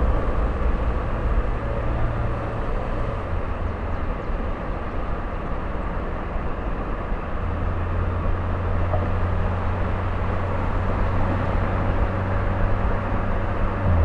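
Turbocharged Mini Cooper engine running steadily at low, even revs, its low drone growing stronger about halfway through.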